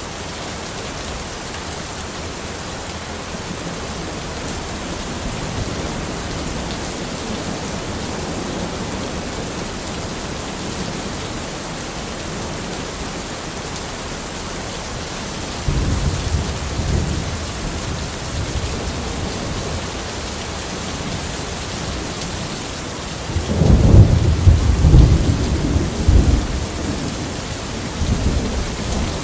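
Steady rain falling in a forest, with thunder rumbling: a first roll about halfway through, a louder, longer one about two-thirds of the way in, and a shorter one near the end.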